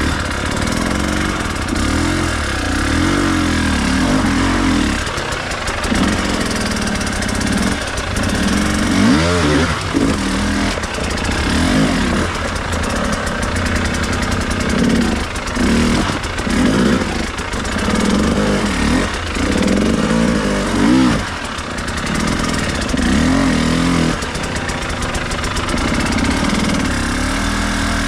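Enduro dirt bike engine being ridden off-road, its note rising and falling again and again as the throttle is opened and closed.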